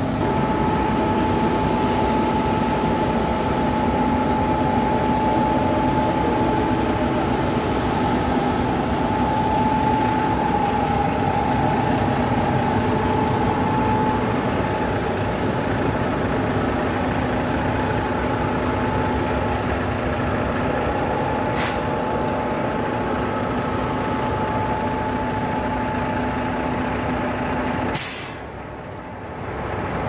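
Heavy diesel truck machinery of a concrete pour, a concrete pump truck and a ready-mix mixer truck, running steadily with a constant drone and a steady whine. A sharp click comes about two-thirds through, and a louder knock near the end, after which the sound briefly drops away.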